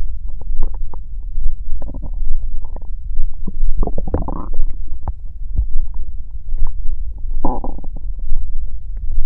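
Stomach growling: a steady low rumble with short liquid gurgles and pops. A louder gurgle comes about two seconds in, the loudest about four seconds in, and another near the end.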